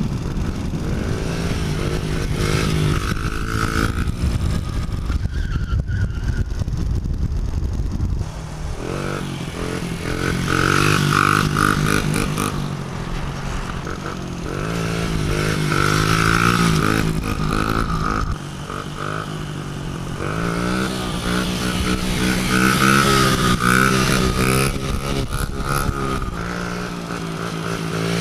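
Honda CRF50 pit bike's small single-cylinder four-stroke engine being ridden, revving up and dropping back again and again, with a steady engine drone underneath.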